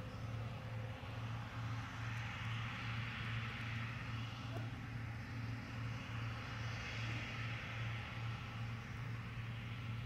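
John Deere combine harvester running while cutting a standing grain crop: a steady low engine drone with a rushing hiss that swells and fades twice.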